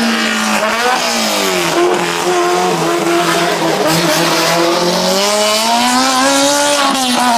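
Hillclimb race car engine running hard, its revs dropping for a couple of seconds, then climbing again from about five seconds in.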